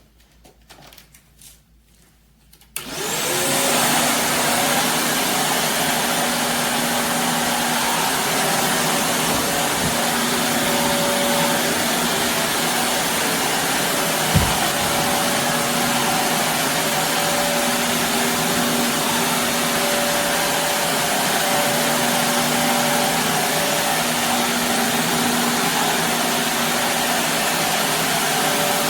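Shark Navigator Lift-Away upright vacuum switched on about three seconds in, its motor spinning up with a rising whine and then running steadily while vacuuming carpet. There is one short knock about halfway through.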